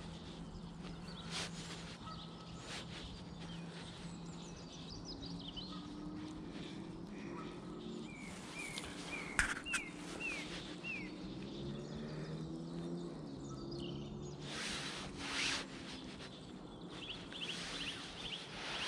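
Small birds chirping, with a run of short falling chirps around the middle and a quick series of chirps near the end, over a low steady hum. There are a few soft clicks and rustles from a fly line being handled.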